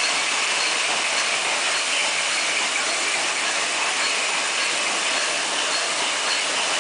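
Aluminium cap knurling machine running steadily, a continuous mechanical clatter with a faint high tick repeating about twice a second.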